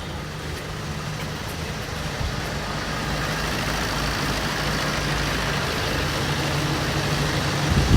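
Diesel car engine idling steadily with a low hum while an engine carbon-cleaning machine feeds gas into it, growing slightly louder toward the end.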